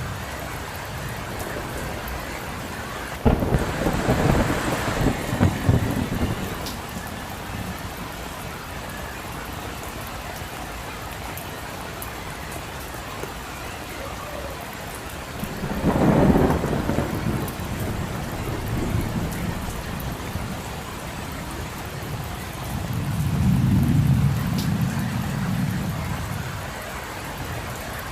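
Steady rain with thunder: a sharp crack about three seconds in that rumbles on for a few seconds, then two more low rumbles that swell and fade later on.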